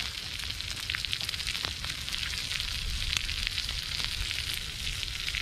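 Eggs with tomato, cheese and onion sizzling in a frying pan over a small wood-chip camp stove: a steady hiss full of small crackles and pops.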